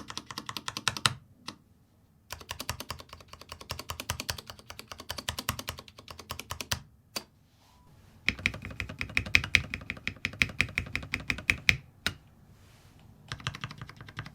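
Typing on a Vortex Multix mechanical keyboard with Cherry MX Red switches: several runs of rapid keystrokes broken by short pauses. In the third run, just past the middle, each keystroke carries a high ring.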